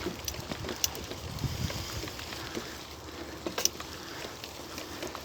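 Bicycle riding over a rough trail: wind rumbling on the microphone with scattered sharp clicks and rattles from the bike.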